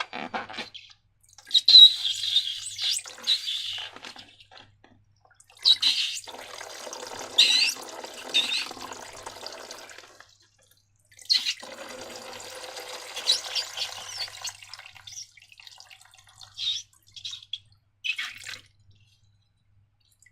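Wet, sticky slime being worked by hand, in three stretches of several seconds each, then a few short separate wet pops near the end.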